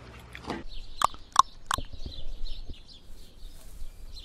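Birds calling: three short, sharp calls about a second in, then steady high-pitched twittering.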